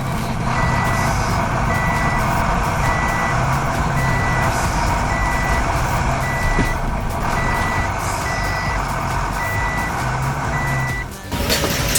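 A truck's reversing alarm beeping at an even pace, about one beep a second, over the steady sound of its running engine. Both cut off suddenly near the end.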